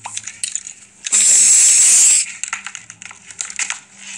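A loud burst of hissing noise lasting about a second, starting about a second in, with faint clicks and rustles around it.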